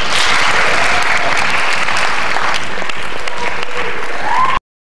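Audience applauding: dense clapping that starts all at once and cuts off abruptly about four and a half seconds in.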